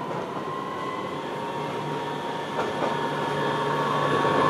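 AnsaldoBreda Sirio light-rail tram approaching along its track, getting steadily louder, with a steady high whine over a low hum.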